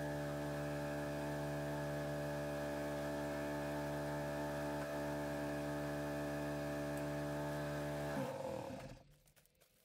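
Small pull-start gasoline engine on a farm fuel trailer running steadily, driving the fuel transfer pump. It breaks off about eight seconds in.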